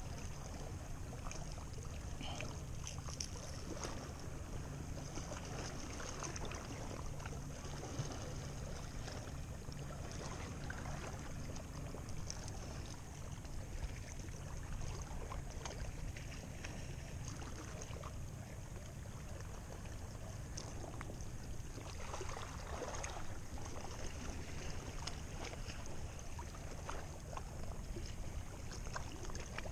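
Steady outdoor noise of a calm sea at the shore and light wind on the microphone, with faint scattered ticks from handling a fishing lure and line.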